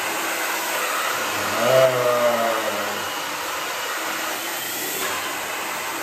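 CHLANT 8991 2000 W ionic hair dryer running with a concentrator nozzle fitted: a steady rush of blown air that drops a little in level after about three seconds. A short burst of voice sounds over it about two seconds in.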